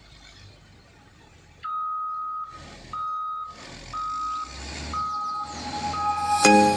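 Motor grader's reversing alarm beeping steadily, about once a second, five times, over the low rumble of its diesel engine.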